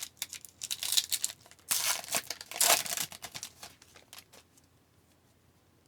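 A 2019-20 Upper Deck Series 1 hockey card pack wrapper being torn open and crinkled: a run of crackling rustles over the first three seconds, dying away soon after.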